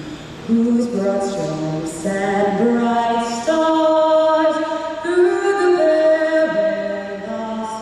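A woman singing the national anthem solo and a cappella, holding long, slow notes that step up and down in a reverberant arena.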